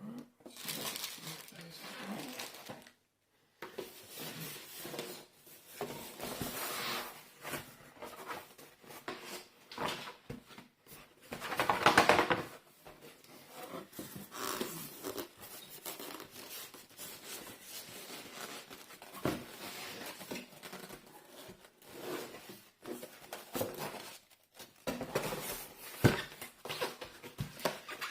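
Hands unpacking a boxed product: packaging crinkling and tearing and items being handled, with a louder rustle about halfway through and a few sharp knocks near the end.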